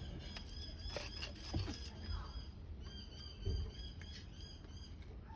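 A small bird chirping in quick repeated high notes, in two runs, with a few soft knocks of small parts being handled.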